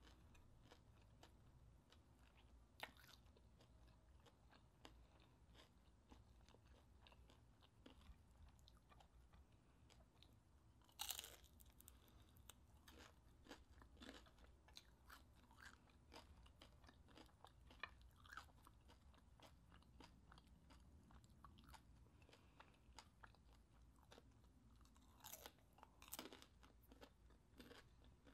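Faint crunching and chewing of crispy deep-fried chicharon bulaklak (pork mesentery), a run of short crisp crackles with louder bites about eleven seconds in and again near the end.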